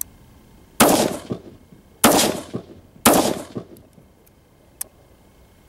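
AR-15 rifle fired three times in slow succession, about a second apart, each shot followed by a fading echo. A much fainter sharp crack comes about a second and a half after the last shot.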